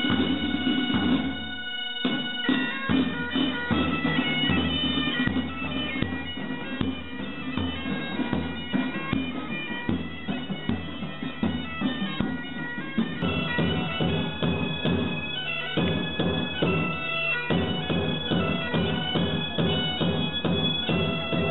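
Bagpipes playing a tune over a steady drone, with a drum beaten in time alongside.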